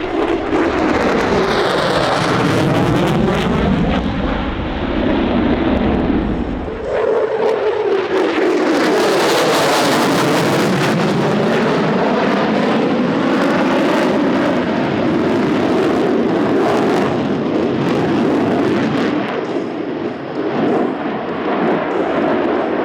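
Lockheed Martin F-22 Raptor's twin Pratt & Whitney F119 afterburning turbofans, loud jet noise of the fighter passing, with tones that sweep down and back up. A heavy deep rumble underneath fades out about seven seconds in.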